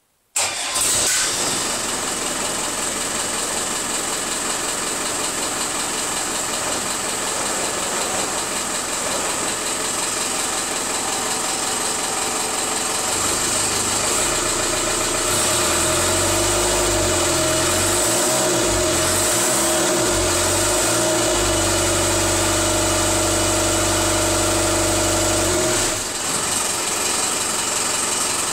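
Land Rover 200TDi 2.5-litre four-cylinder turbodiesel starting on its first start after two years unused: it fires almost instantly from silence and settles into running steadily. It runs a little louder from about halfway through, dropping back shortly before the end.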